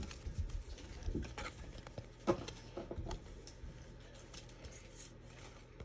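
Thin cardboard trading cards being handled and flipped through in the hand, a scatter of light slides and taps as cards are moved across one another, the clearest a couple of seconds in, over a faint low hum.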